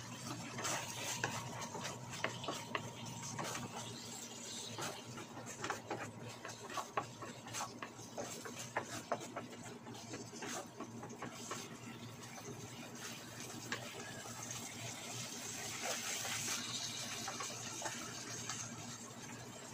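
A wooden spatula stirs and scrapes sliced onions and other ingredients in a nonstick frying pan, with frequent light knocks against the pan over a steady frying sizzle. Toward the end the knocking stops and the sizzling goes on.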